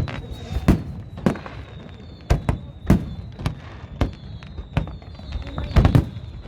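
Fireworks display: an irregular run of sharp bangs from exploding aerial shells, about a dozen, some echoing briefly.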